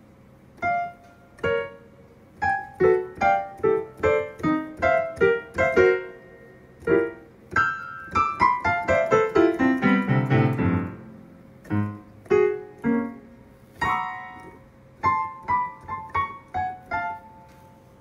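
Digital piano keys struck one or a few at a time at uneven intervals, making a disjointed jumble of notes, with a quick run stepping down the keyboard around ten seconds in.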